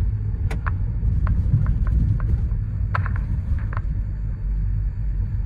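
Ford Courier van's 1.5-litre, 100 hp engine and road noise heard from inside the cabin while driving: a steady low rumble, with a few light clicks and knocks.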